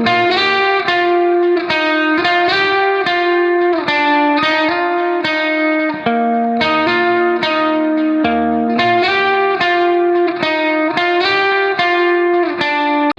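Background music: a plucked guitar melody in a steady run of notes, with a light effects-processed tone.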